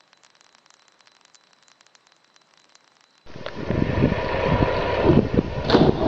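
Near silence with faint scattered clicks, then from about three seconds in a steady wind rumble buffeting a phone microphone. Near the end comes a sudden splash of a body hitting swimming-pool water.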